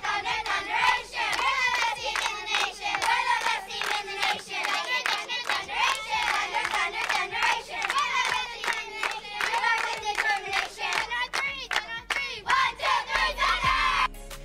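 A team of young girls chanting a team cheer together in unison and clapping along in rhythm. It stops abruptly near the end.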